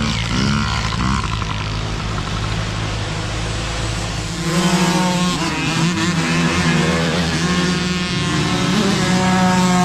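Small mini dirt bike engines buzzing and revving. About halfway through the sound changes to a single bike's engine that rises and falls in pitch as it is revved.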